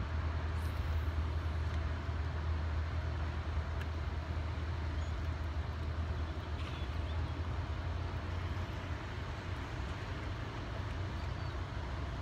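Steady low rumble of water discharging below a dam, with an even hiss on top and no breaks.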